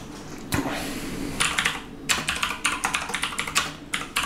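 Typing on a computer keyboard: quick runs of key clicks, several short bursts with brief pauses between them.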